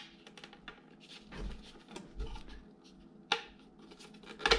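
Hard plastic dash-trim parts rubbing and knocking as a stereo dash kit and trim piece are fitted together by hand, with a sharp click about three seconds in and a louder snap near the end as the tabs snap into place.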